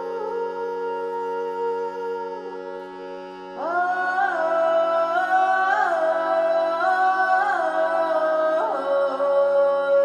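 Slow meditative chant music: a steady drone under a melody of long held notes that glide from one to the next, with a fuller, louder line coming in about three and a half seconds in.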